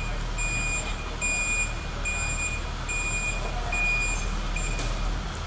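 Repeated electronic beeping, about one beep every 0.8 seconds, stopping near the end, over a steady low hum.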